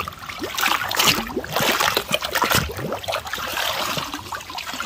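Shallow stream water splashing and gurgling as a plastic toy cement-mixer truck is lifted out of it by hand, water sloshing in its drum and running off it.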